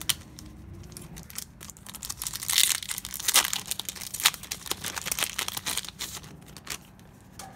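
Trading card booster pack wrapper crinkling and tearing open, a dense run of crackles loudest about two to four seconds in.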